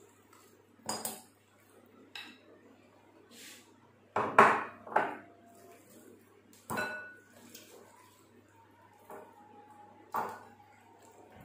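Glass bowls clinking and knocking as raw chicken pieces are handled and dropped from one bowl into a cut-glass bowl: about half a dozen separate knocks, some ringing briefly, with the loudest cluster about four seconds in.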